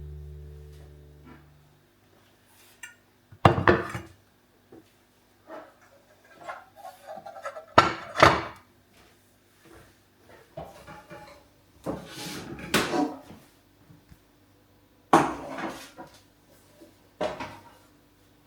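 Dishes and kitchenware clinking and knocking as they are handled and set down. There are several separate clatters spread through the stretch, the loudest about eight seconds in.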